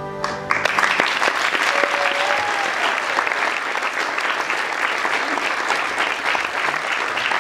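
Audience applauding, a dense steady clapping that starts half a second in as the song's final held chord stops.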